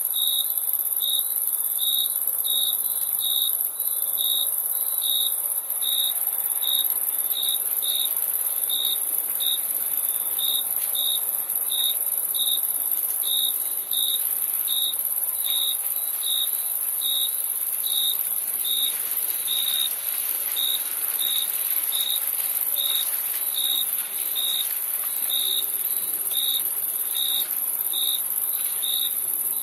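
Crickets chirping: short chirps at a steady, even pace, a little over one a second, over a continuous high-pitched trill.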